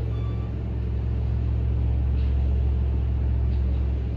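Steady low diesel rumble of a road milling machine (cold planer) tearing up the asphalt street, with the dump truck that its conveyor is loading.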